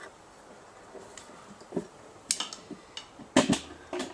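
Handling noise from the camera being repositioned: several short, sharp clicks and knocks, the loudest pair about three and a half seconds in.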